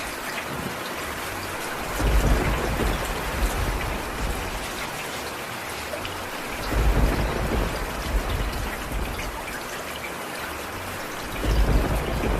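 Steady rain falling as an even hiss. Three low rumbles swell up and fade: about two seconds in, about seven seconds in, and near the end.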